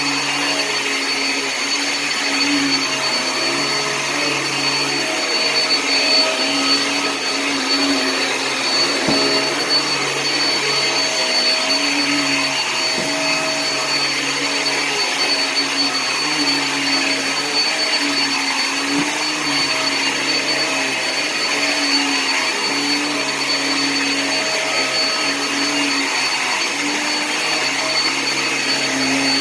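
Hoover React upright vacuum cleaner running steadily while vacuuming carpet: a constant motor and airflow noise with a thin high whine, and a lower hum that wavers throughout.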